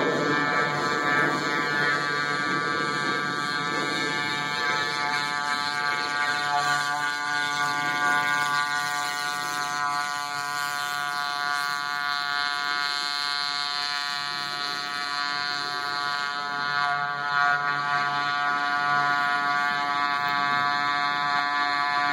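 A homemade kayak's 6 HP liquid-cooled Polini pocket-bike race motor, a small two-stroke, running at steady high revs as it drives the kayak across the water, giving a high, even drone with little change in pitch.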